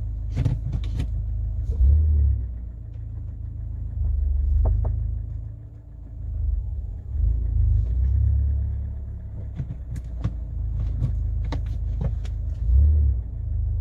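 A Kia Cerato rumbling as it moves, with about ten short, light knocks scattered through the rumble.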